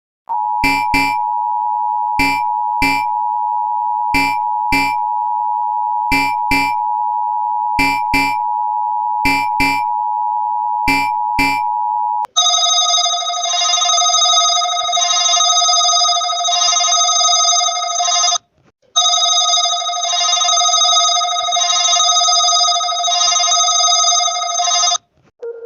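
Emergency Alert System-style alarm tones. A steady two-note attention tone is broken by pairs of short blips about every two seconds. About halfway through it switches to a shrill chord of several tones pulsing about once a second, with a brief break partway, and it cuts off just before the end.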